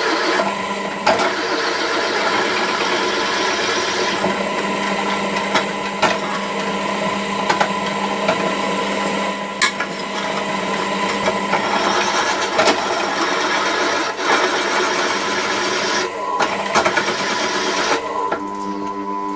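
Drill press motor running steadily while a step drill bit scrapes and grinds through a plate, the cutting noise swelling and easing a few times as the bit is fed, with scattered sharp clicks.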